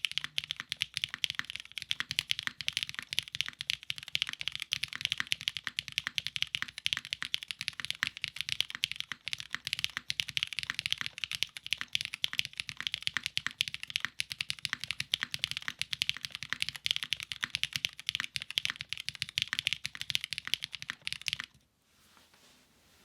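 Fast continuous typing on a custom gummy O-ring-mounted aluminium-plate mechanical keyboard with GMK keycaps and lubed, filmed vintage Cherry MX switches with Kailh stems; the typing stops near the end.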